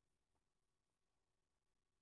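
Near silence: only faint background hiss.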